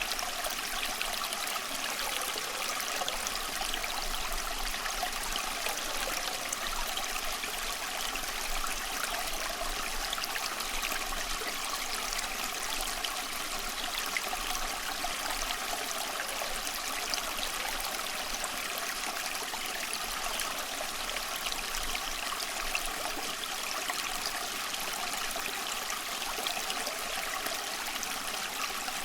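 Small stream flowing, a steady trickling and babbling of water over stones.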